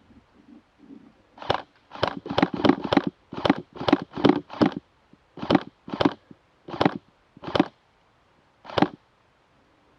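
Airsoft gun firing a string of about fourteen single shots in quick, uneven succession, tightly bunched at first and then more spread out.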